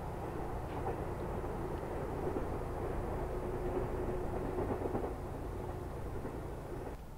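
Electric train running on the tracks, heard at a distance: a steady low rumble, with a faint held tone over a few seconds midway.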